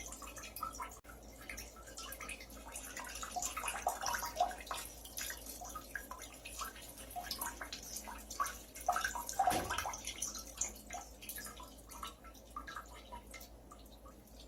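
Urine splashing into toilet bowl water in an irregular run of dribbles and drips that thins out and gets quieter over the last few seconds.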